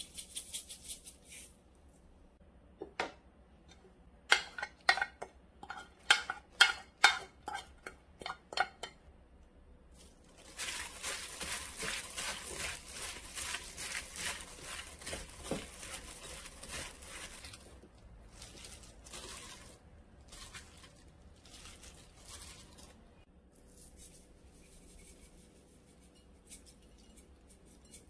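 Cucumber and apple salad being tossed by a hand in a plastic glove in a glass bowl. A run of sharp clinks comes first, then several seconds of steady rustling and squishing as the pieces are mixed, dying down to lighter, scattered rustles.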